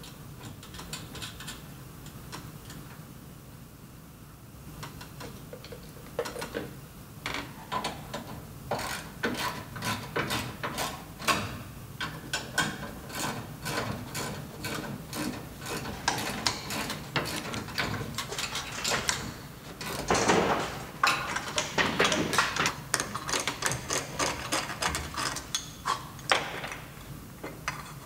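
Metal clicking and clinking of hardware as a service insulator's clamp is fitted and tightened onto a metal service mast, in quick runs of clicks from about six seconds in.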